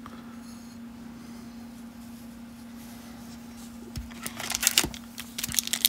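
A faint steady hum for about four seconds, then the crinkling rustle of a foil trading-card pack being pulled from the box by hand.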